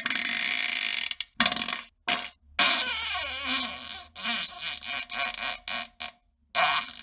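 Fart sounds played in a rapid, edited series: short bursts, each cut off into dead silence. There is one longer blast in the middle, about a second and a half long, that wavers in pitch.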